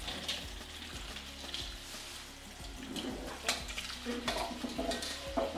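Kitchen tap running onto a wok of boiled coconut palm weevil grubs in the sink, rinsing and cooling them, with a few light knocks.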